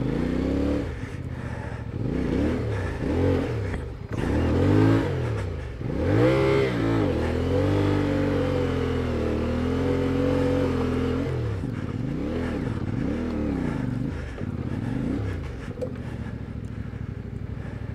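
CFMOTO 450MT's parallel-twin engine revving up and dropping back again and again as the throttle is worked, with a steadier, higher-pitched stretch of a few seconds near the middle.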